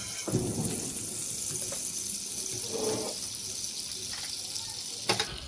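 Butter sizzling as it melts in hot oil in a pan, a steady hiss with a short knock near the end, after which the sizzle quietens.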